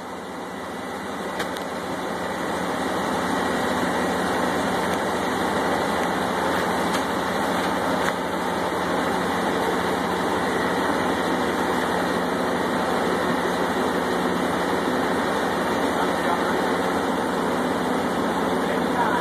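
Drilling rig machinery and engines running with a steady drone, with a faint metal click now and then.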